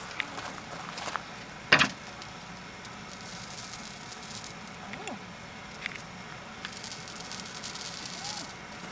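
Horse hair sizzling and crackling as it is laid on a hot, unglazed raku pot, in two spells of hissing crackle, with a sharp knock about two seconds in.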